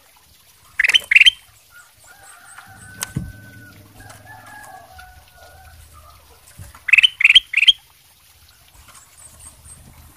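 Caged ruby-throated bulbul (kutilang emas) calling: two short loud rising notes about a second in, then a quick run of three near the seven-second mark.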